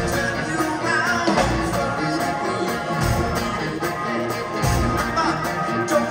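Live rock band playing at full volume: electric guitar, bass, drums and keyboards, with a singer's voice over them.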